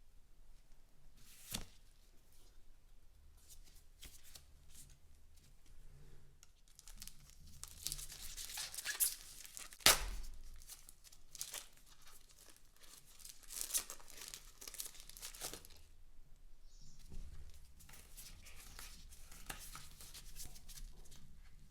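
Card packaging being torn open and crinkled by hand, with scattered sharp clicks and snaps; the loudest snap comes about halfway through.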